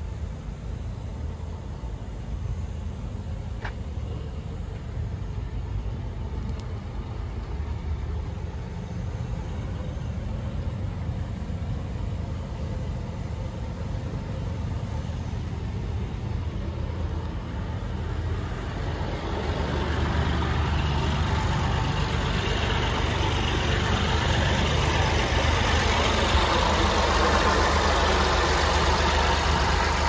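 An engine running at idle, a steady low hum that grows louder and fuller from about two-thirds of the way through.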